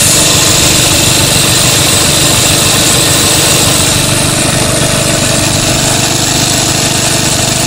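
Small 3 HP gasoline engine running steadily, belt-driving a 1963 Quincy 325 two-stage reciprocating air compressor as its cylinders are switched over to load.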